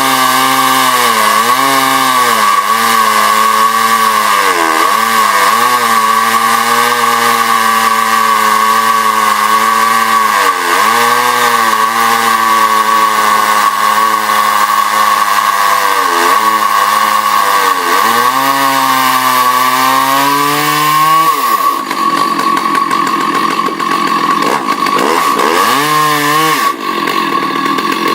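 Husqvarna 298 two-stroke chainsaw milling, running under heavy load in the cut with its engine note sagging and recovering again and again. About 21 seconds in it revs up sharply to a high steady scream, as if freed from the cut, dips briefly near the end and climbs again.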